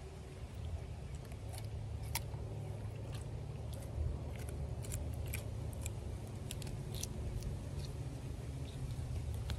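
Canister Damascus hunting knife cutting through raw chicken, with scattered small clicks and snips as the blade works through skin and joints. A low steady rumble runs underneath.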